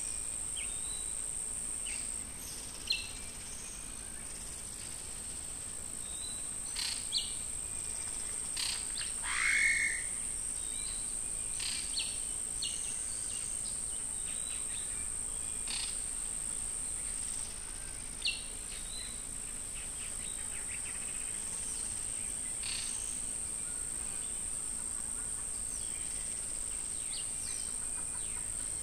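Steady high-pitched drone of insects with short bird chirps scattered through it, the loudest a falling call about ten seconds in.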